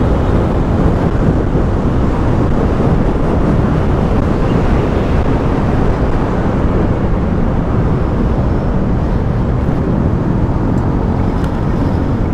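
Motorcycle riding noise: a steady rush of wind buffeting the microphone, with road and engine noise underneath.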